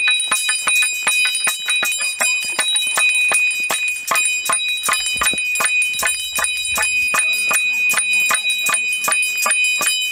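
A small metal bell shaken rapidly and continuously, its clapper striking about six times a second over a steady high ring.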